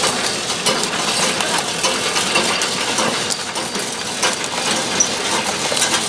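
Whirly lollipop-making machine running: a steady mechanical clatter with many small irregular clicks.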